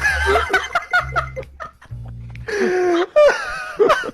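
People laughing and giggling over background music with low bass notes.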